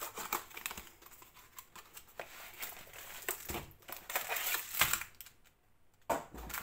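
Cardboard box flap opened and plastic-wrapped contents slid out and laid on a table: irregular papery scraping and plastic crinkling with small taps, and a dull thump about six seconds in.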